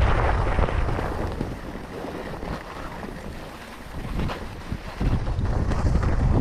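Wind buffeting the microphone of a skier running down a groomed piste, with the skis hissing over the snow. The rumble eases for a few seconds in the middle and comes back strongly about five seconds in.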